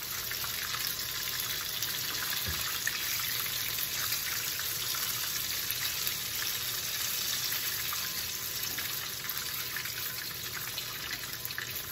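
Breaded chicken strips frying in oil in a skillet, a steady sizzle with fine crackling.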